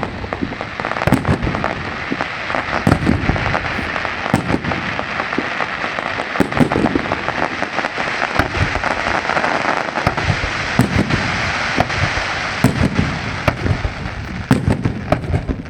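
Fireworks display: a dense, continuous crackling barrage with many sharp bangs and repeated heavier booms of shells bursting.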